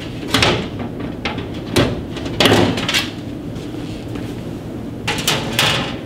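Sheet-metal access door of a gas furnace being pulled off and set aside: a handful of short metallic clanks and rattles, spread across the few seconds.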